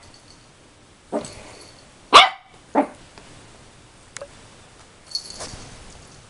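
Yorkshire terrier puppy barking at his own reflection in a mirror: three short, sharp barks, the second the loudest.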